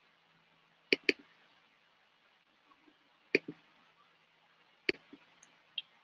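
Computer mouse clicks: a quick double-click about a second in, another pair near the middle, and one or two single clicks near the end.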